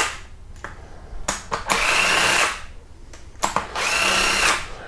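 Cordless power tool spinning out pre-loosened cylinder head bolts: two runs of about a second each, the motor whine rising and then holding steady, with a few short clicks between them.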